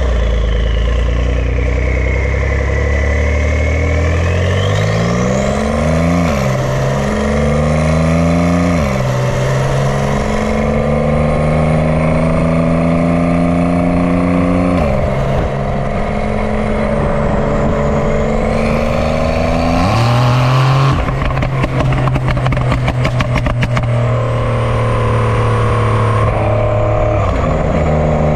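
Porsche 992 911 Carrera S twin-turbo flat-six, tuned and running without its catalytic converters, revving up and dropping in pitch several times as it shifts. A high turbo whistle rises and falls over the engine, and about two-thirds of the way through a rapid run of exhaust crackles and pops comes on lift-off.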